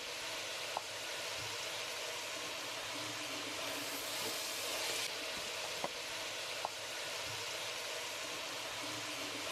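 Sliced shallots and onions sizzling steadily in hot coconut oil as they are stirred and sautéed, with a few faint clicks.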